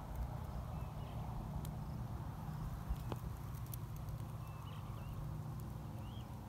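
Outdoor ambience: a steady low wind rumble on the microphone, with a few faint, short chirps and a single small click about three seconds in.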